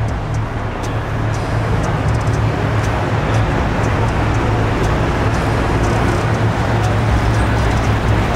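Porsche 911's flat-six engine running at low, steady revs as the car rolls slowly past, a deep even drone.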